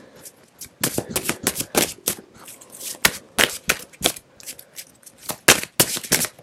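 A tarot deck being shuffled by hand: an irregular run of sharp card snaps and slaps as the deck is worked to draw a card.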